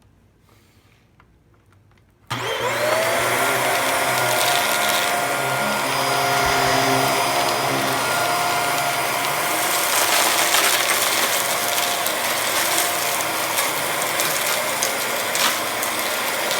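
Hoover WindTunnel3 UH72511 upright vacuum cleaner switched on about two seconds in: the motor spins up with a rising whine, then runs loud and steady.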